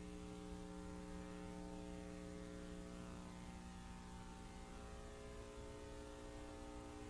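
Faint, steady electrical mains hum: a low buzz made of several steady tones over light hiss, which cuts off abruptly near the end.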